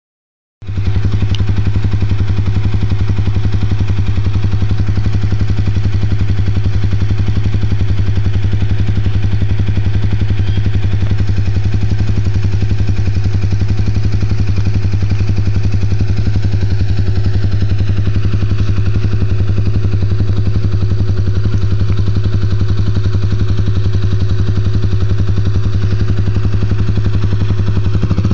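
Four-wheeler (ATV) engine idling steadily, a loud even running sound that starts about half a second in.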